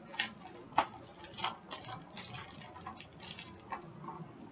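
Hard plastic graded-comic case (CBCS slab) handled in the hands: an irregular scatter of small clicks, taps and crackles, a few sharper ones in the first second and a half.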